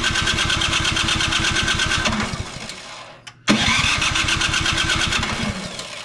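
Snowblower's MTD Powermore 270-XU engine cranking on its plug-in electric starter in two bursts of fast, even chugging. Each burst winds down and stops, the first about three seconds in and the second near the end, and the engine never fires: a no-start.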